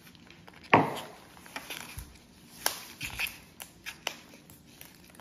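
Handling noise from a plastic baby food pouch being opened: scattered crinkles and clicks, with a sharp knock under a second in and another near the middle.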